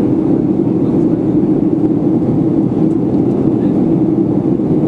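Steady cabin noise of a Boeing 737-300 in flight, heard from inside the cabin: the constant drone of its CFM56-3 turbofan engines and the rushing airflow, heaviest in the low-middle range, with no change.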